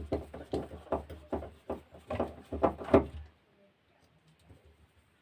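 Quick, irregular clicks and knocks of hands handling and fitting small parts of a sprayer pump motor, for about three seconds, then it goes almost silent.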